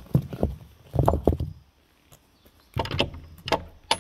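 Irregular knocks and thumps, some in quick clusters. They are busy in the first second and a half, stop briefly, then come again sharply near the end.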